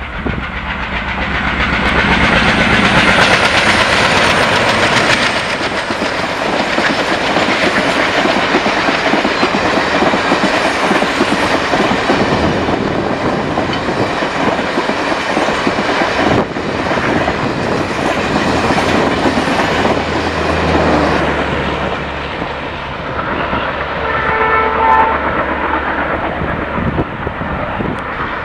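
Twin ALCO WDM-3A diesel locomotives, each with a 16-cylinder ALCO 251 engine, running hard as they pass at high speed. The long rake of passenger coaches follows, clattering over the rail joints. About three-quarters of the way through, a horn sounds briefly.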